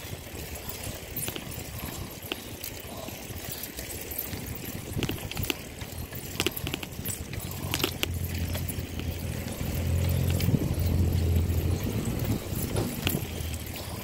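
A bicycle riding along an asphalt street: rolling tyre noise and wind on a phone microphone, with scattered small clicks and rattles. A low hum swells for a few seconds about eight seconds in.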